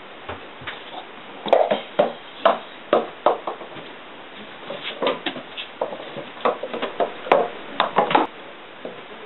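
A small ball bouncing and rolling down wooden stair treads: two runs of irregular light knocks of different loudness.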